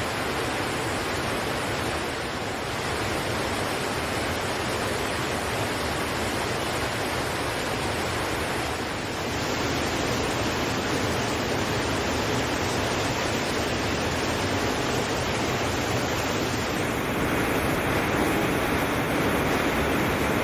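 Waterfall rushing: a steady, dense wash of falling water. Its tone shifts about nine seconds in, and again near the end, where it turns fuller and lower.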